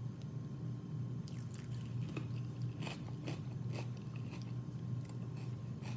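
Close-up eating sounds: chewing and crunchy bites of seafood-boil food, a run of short wet crackles in the first half, over a steady low hum.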